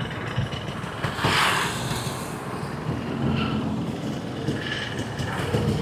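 Road traffic noise with a steady low engine hum; a vehicle passes about a second in.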